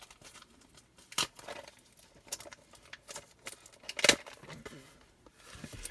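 Fingers working at a small cardboard mystery-mini box that is tricky to open: scattered light scratches and clicks, with two sharper clicks about a second in and about four seconds in.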